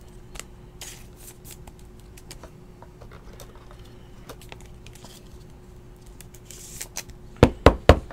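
Trading cards being handled on a table: faint rustles and small clicks, then a quick run of loud thumps near the end as the cards are set down and knocked against the tabletop.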